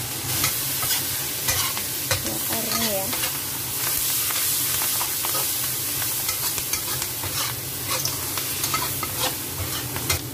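Flowering chives and smoked duck sizzling in a hot wok while a metal spatula stirs and tosses them, with frequent clicks and scrapes of the spatula against the pan over a steady frying hiss.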